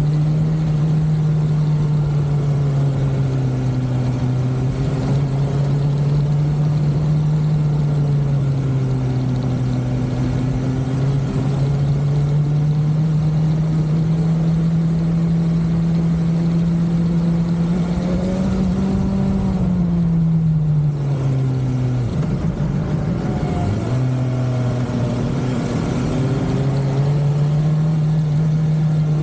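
BMW motorcycle's inline-four engine running at a steady cruise. About two-thirds of the way in the note rises, falls away as the throttle closes, dips twice and then climbs again as the bike picks up speed.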